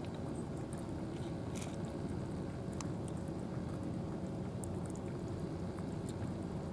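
Two cats chewing wet food from plastic trays: scattered small clicks and smacks of eating over a steady low background rumble.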